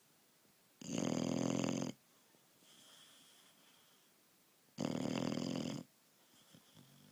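Loud snoring: two long snores, each about a second, about four seconds apart, with a soft breath between them.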